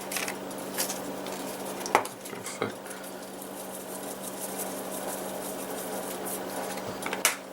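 A few scattered clinks and knocks of kitchen utensils and containers over a steady low hum.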